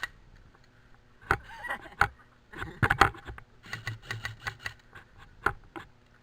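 Irregular sharp clicks and knocks from an airsoft player's gun and gear, including a quick run of about six clicks around the middle.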